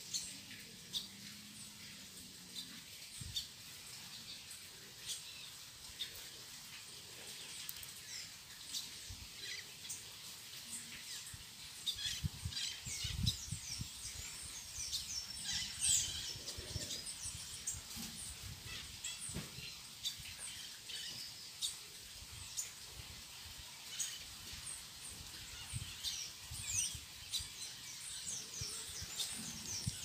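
Wild birds chirping and calling in the background, many short high chirps and quick whistled glides, busiest in the middle and near the end. Occasional soft knocks and rustles from thin wooden sticks being handled and fitted together.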